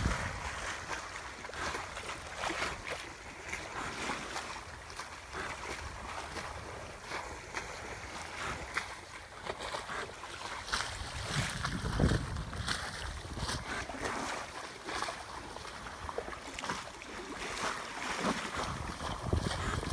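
Water sloshing and splashing against a small sailing yacht's hull at sea, with wind gusting on the microphone in low rumbles about two-thirds of the way through and again near the end.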